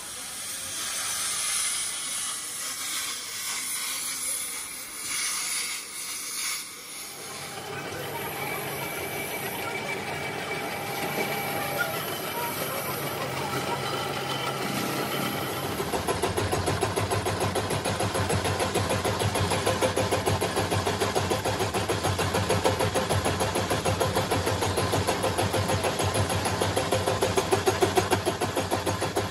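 A steady hiss for the first seven seconds or so, then a metalworking machine tool running with a steady mechanical drone. About sixteen seconds in it grows louder, with a fast regular pulsing.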